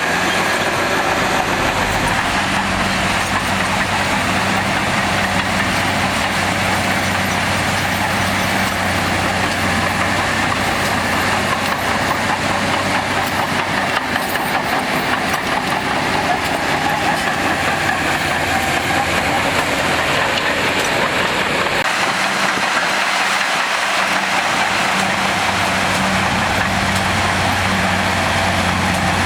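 Heavy diesel construction machinery running steadily: a low, even engine drone under a constant hiss of working noise.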